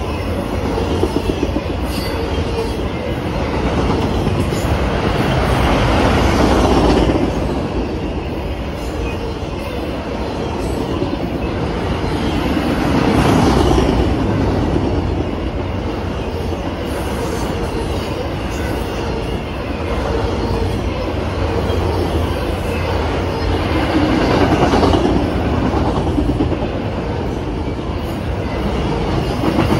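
Freight train of autorack cars rolling past close by, the wheels clacking steadily over the rail joints under a continuous rumble. The noise swells and eases several times as the cars go by.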